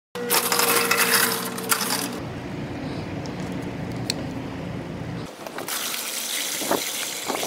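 Water poured from a bucket into a wet tile saw's water tray, gushing and splashing, with a few light knocks.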